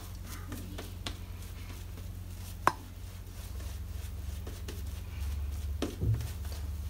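Silvertip shaving brush working lather over a stubbled face: irregular soft brushing strokes against the skin, with a few sharp clicks, the loudest about two and a half seconds in, over a steady low hum.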